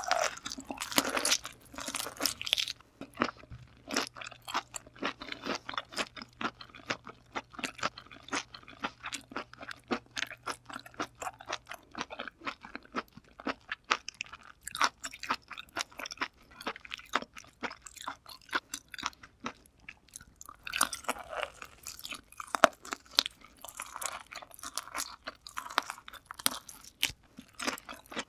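Close-miked chewing of a mouthful of raw kuruma prawn, a steady run of small clicks and smacks with some crunching.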